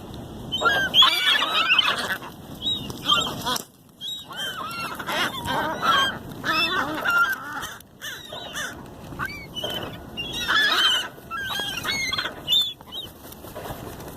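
A crowd of gulls calling over one another: many short, arched cries overlapping, as the birds squabble over food.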